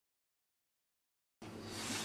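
Silence, then about one and a half seconds in, a steady background hiss with a faint low hum starts up: room tone.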